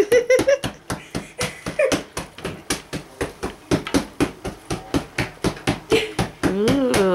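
Rapid, even tapping, about five sharp taps a second, going on steadily. A voice sings briefly near the end.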